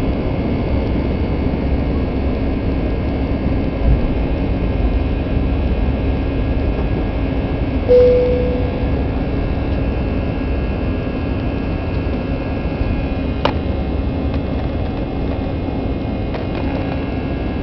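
Airbus A320 cabin during the takeoff climb: the engines at takeoff thrust give a loud, steady noise with several steady hum-like tones. A low thump comes about four seconds in, a short single tone that fades quickly about eight seconds in, and a sharp click after about thirteen seconds.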